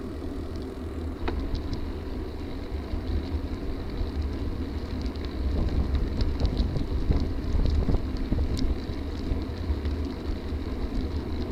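Wind buffeting the microphone over the steady rumble of a gravel bike's tyres rolling on a rough trail, with scattered small clicks and rattles.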